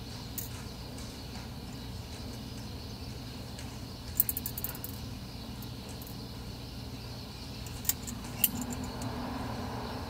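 Steel Flame custom Zippo lighter handled in the fingers, its metal case and attached chain giving small metallic clicks and jingles: a quick cluster about four seconds in, then two sharp clicks near the end as the lid is flipped open. A steady low hum lies under it.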